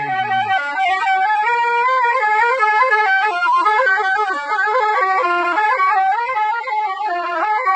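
Traditional folk music with a reedy wind instrument playing a fast, ornamented melody, loud and continuous.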